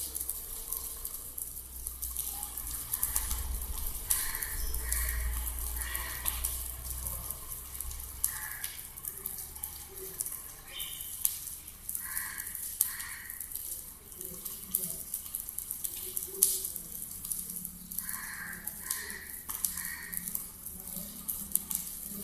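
A ritual fire in a brick homa pit burning with a steady hiss and many small crackles. Short higher sounds come in groups of two or three at intervals of several seconds.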